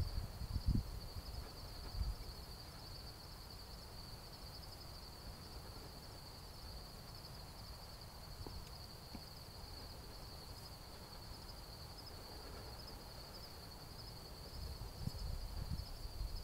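A steady, high-pitched insect chorus, a fine trilling pulse that never lets up. Low thumps and rumbles at the start and again near the end.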